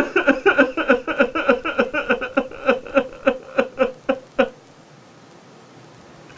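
A man sobbing in quick, breathy gasps, about five a second, that stop abruptly a little after four seconds.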